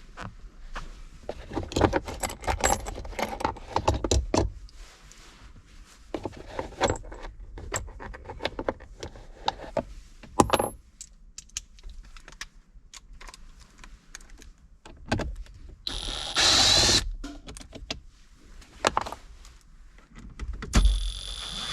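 Hand tools clinking and clicking on T25 Torx bolts as a socket breaks them loose. Near the end come two short bursts of a cordless impact driver, about a second each, running the bolts out.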